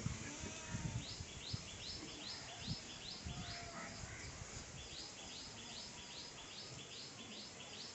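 Goats bleating faintly, over a high chirping that repeats about three times a second from about a second in. A few low thumps come in the first second.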